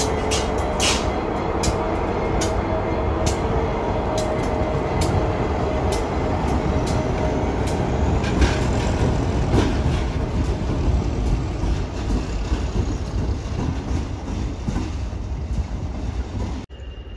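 Class 59 diesel-electric locomotive 59206 passing close by with coaches, its two-stroke EMD V16 engine running steadily. The wheels click over rail joints, the clicks coming further apart as it goes. The sound eases and then cuts off suddenly near the end.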